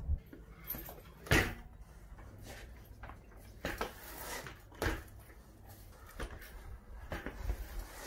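BMX bike knocking on pavement during tricks: scattered sharp knocks and clacks as the wheels drop and land, over a low rolling rumble. The loudest knock comes about a second and a half in.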